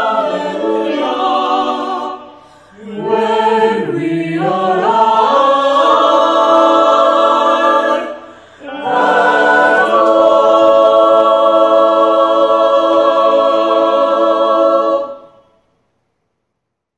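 Mixed-voice high school chamber choir singing, with two brief breaks for breath, then one long held final chord that cuts off near the end.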